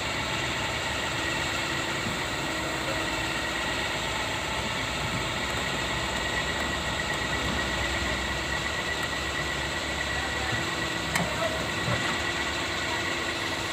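Diesel engine of an old Hitachi crawler excavator running steadily as the machine tracks slowly onto a lowboy trailer, with a steady high whine over the engine noise and a couple of light clanks near the end.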